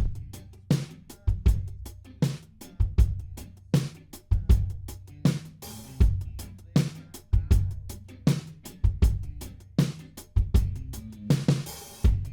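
Recorded drum kit playing a steady groove on its own, without the rest of the song: kick drum, snare and hi-hat/cymbals in an even rhythm.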